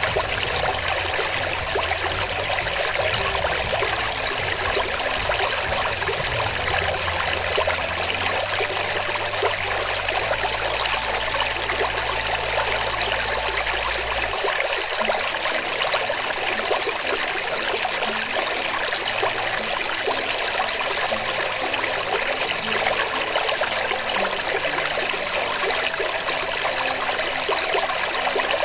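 Steady flowing-water sound, like a stream or trickle, with a low rumble under it that cuts off about halfway through.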